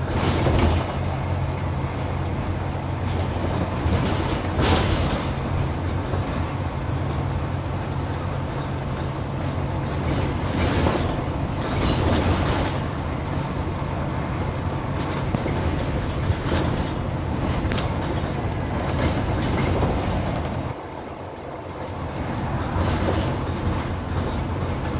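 Ride noise inside the upper deck of a Scania N94UD double-decker bus at speed: the steady drone of its diesel engine with road noise and a few knocks from the body. Near the end the engine drone drops away for about a second, then builds again.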